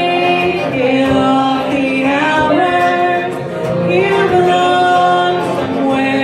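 Live band: a woman singing lead with other voices singing along at the microphones, over strummed acoustic guitar, holding long notes of about a second each.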